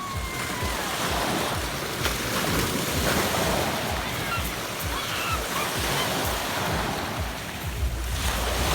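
Small Adriatic Sea waves breaking and washing up over a pebble beach, a steady surging hiss that swells and eases. Wind buffets the microphone near the end.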